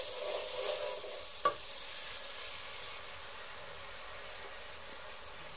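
Condensed milk sizzling as it is poured into hot caramelized sugar in a pan: a steady hiss that slowly dies down. One light knock about a second and a half in.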